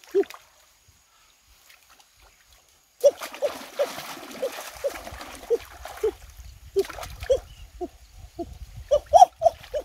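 Hands splashing and sloshing in shallow muddy stream water while groping for catfish, starting about three seconds in, with a puppy giving short whimpering yelps over and over.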